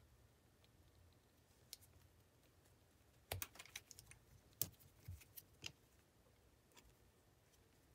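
Faint scattered clicks of Southwire SNM1214HD Romex strippers' metal jaws and spring-loaded handles working on a 14-gauge wire, with a quick run of clicks in the middle and a few single ones after.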